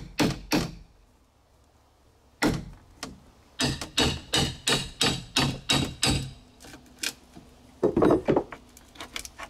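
Hammer blows on a flat steel crowbar wedged between two nailed boards to pry one off. There are a few quick knocks, a short pause, then a steady run of about three blows a second, and a rougher scraping noise near the end.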